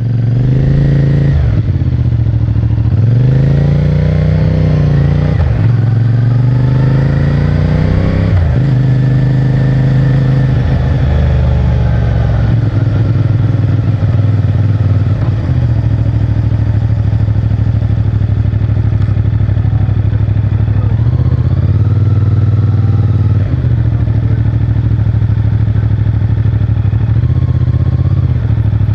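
CFMOTO 450MT's parallel-twin engine pulling away through the gears, its pitch rising and dropping at each shift over the first several seconds, then cruising at fairly steady revs with small throttle changes.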